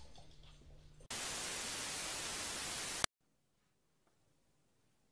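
A burst of steady, even static hiss lasting about two seconds, starting about a second in and cutting off suddenly, followed by near silence.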